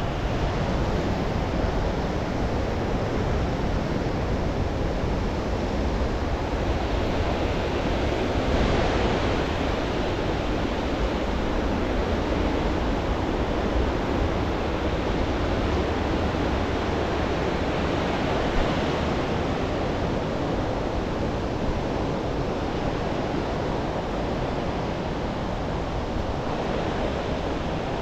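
Waterfall pouring in a steady, unbroken rush of falling water, its flow up with rainwater.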